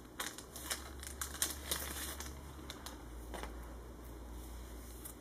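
Soft LDPE plastic packaging sleeve crinkling and rustling as it is handled, with a few light clicks and taps in the first three and a half seconds, over a faint steady low hum.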